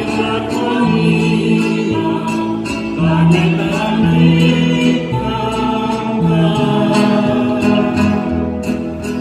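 Live Mexican folk music from Michoacán: strummed guitars accompanying voices singing together in long held notes.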